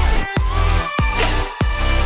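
Electronic dance music with a heavy bass line and a beat about every 0.6 seconds.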